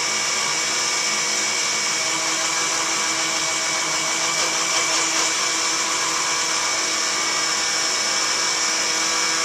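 Countertop blender motor running steadily on its 'frappe' setting, blending banana chunks and chocolate milk.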